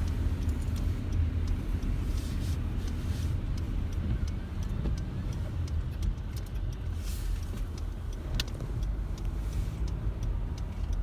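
Car moving along snowy city streets, heard from inside the cabin: a steady low rumble of engine and tyre noise with a few faint ticks.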